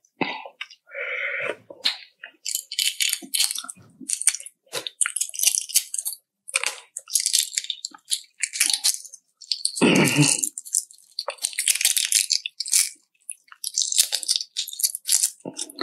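Irregular crackling and crunching of a balut's eggshell being cracked and peeled, with one louder, fuller sound about ten seconds in.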